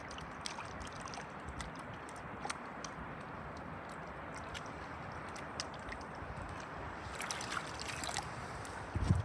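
Light splashing and lapping of lake water against shoreline rocks as hands work in the shallows with a hooked trout, with small drips and splashes throughout that grow busier about seven seconds in. A short low thud near the end.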